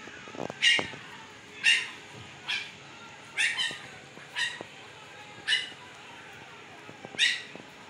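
Fifteen-day-old Siberian husky puppies giving short, high-pitched squeaking cries, about one a second, while they nurse.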